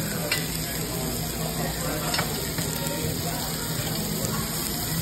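Shrimp, chicken and vegetables sizzling steadily on a tabletop Korean barbecue grill pan, with two light clicks of metal tongs against the grill, one just after the start and one about two seconds in.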